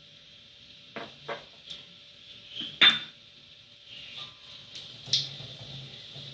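Wooden spatula knocking and scraping against a metal wok that holds cooking oil: a handful of sharp knocks, the loudest about three seconds in.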